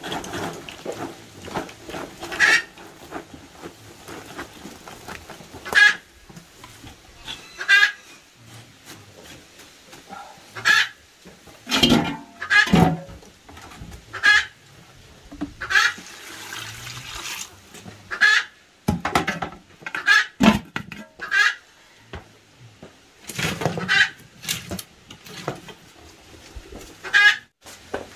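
Chickens clucking and squawking in short, irregular calls every second or two. At the start there is a rustle of chopped feed being poured from a woven basket into a metal pot.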